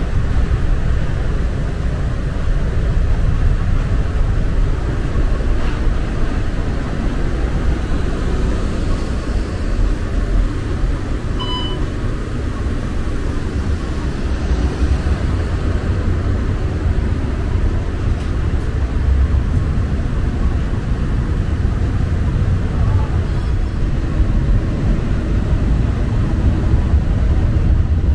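Muni Metro light-rail train running, heard from on board: a steady low rumble and running noise of the car in motion.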